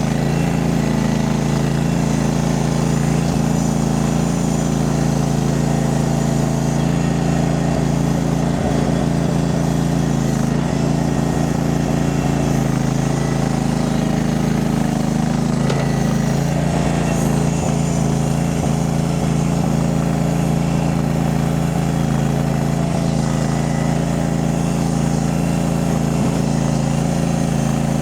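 Small engine of a mini skid steer (compact track loader) running steadily at constant speed.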